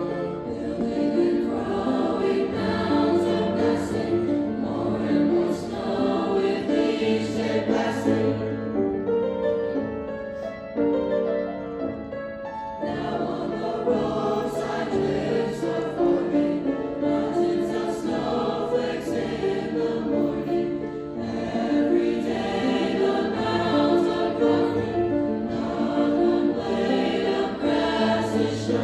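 High school choir singing in several parts at once, the texture thinning briefly about a third of the way through before the full choir comes back in.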